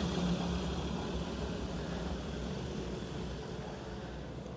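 A road vehicle passing, engine hum and tyre noise slowly fading away.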